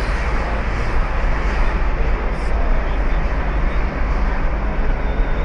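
Steady road and engine noise of a moving car heard from inside the cabin, with a heavy low rumble and no breaks.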